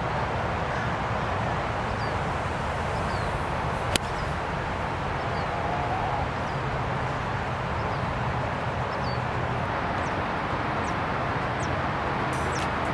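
A 6-iron striking a golf ball: one sharp click about four seconds in, over steady outdoor background noise.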